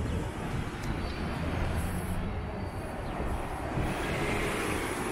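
Articulated city bus driving past close by at the curb, its engine running low with road noise swelling toward the end, over steady street traffic.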